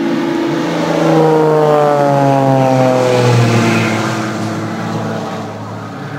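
Aerobatic airplane's engine passing by, its pitch sliding down as it goes past; loudest in the first half, then fading away.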